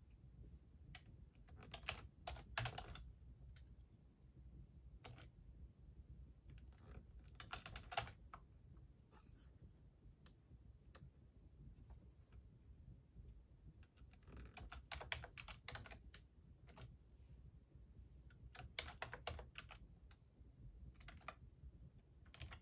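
Faint typing on a computer keyboard: several short bursts of keystrokes separated by pauses of a few seconds.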